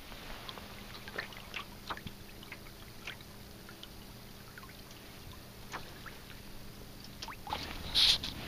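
Water lapping and trickling against a sailing canoe's hull as it moves, with small scattered splashes and a brief louder splash near the end.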